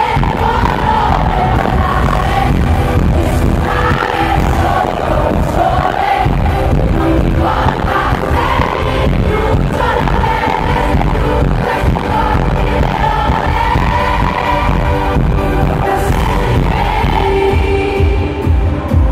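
Live pop song: a woman sings into a microphone over a full band, played loud through the arena's sound system.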